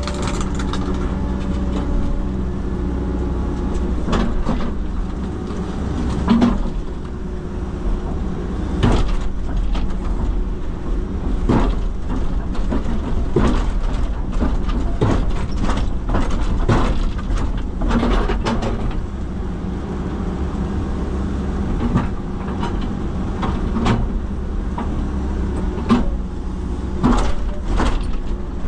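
Cat 312CL excavator's diesel engine running steadily, with repeated irregular knocks and clanks as the bucket and thumb strike and break up concrete and block.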